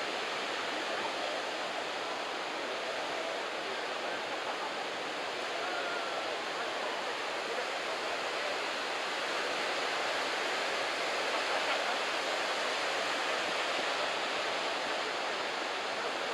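Head-high typhoon swell breaking on a beach: a steady, continuous wash of surf with no single wave standing out, a little louder in the second half.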